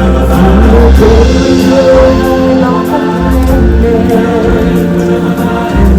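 Stage-show music: a group of singers holding long sung notes over a band with heavy bass.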